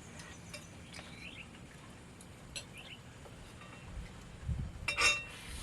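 Quiet background with a few faint, short bird chirps; about five seconds in, tableware clinks with a brief ringing tone, as a utensil strikes a plate.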